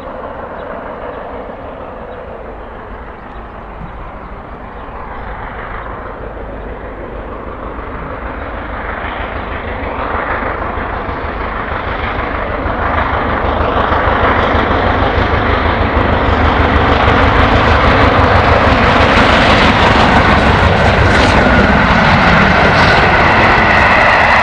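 Steam locomotive hauling a passenger train as it approaches, its running growing steadily louder over about fifteen seconds, then the train rolls past close by near the end.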